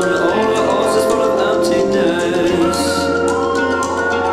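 Music for the stage routine, with sustained melodic lines and light ticking percussion.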